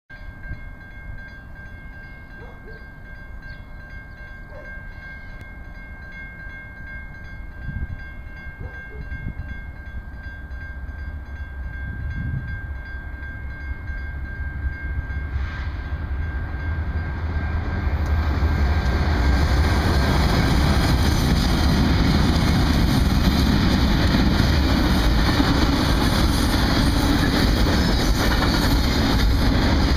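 BNSF double-stack freight train approaching, its low locomotive rumble growing steadily louder, then passing close with loud, steady wheel-and-rail noise from about 18 seconds in.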